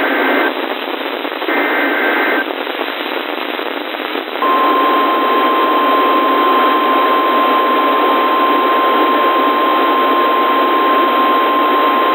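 Emergency Alert System data bursts on a NOAA Weather Radio broadcast: two short warbling two-tone SAME header bursts about a second apart, then, about four seconds in, the steady 1050 Hz weather-radio alarm tone that heralds a warning. All of it sits over a constant radio hiss.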